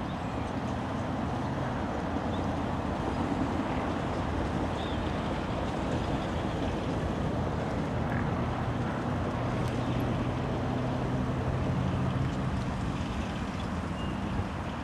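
A miniature diesel locomotive, the 15-inch-gauge Baby Deltic D5905, running steadily as it hauls its train. Its engine is a faint low hum that shifts a little in pitch, under a steady rushing noise that is louder than the hum.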